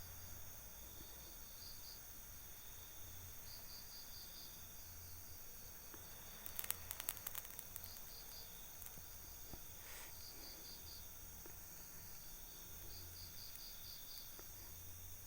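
Night insects chirping in short repeated groups of rapid pulses over a steady high-pitched drone. A brief cluster of sharp clicks comes about seven seconds in.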